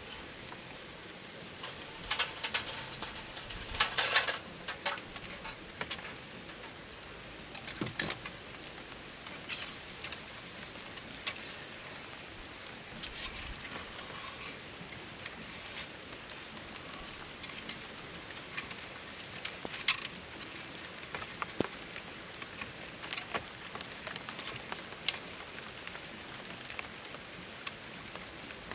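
A steady hiss with irregular sharp clicks and taps scattered through it, most of them in a cluster about two to four seconds in and another near eight seconds.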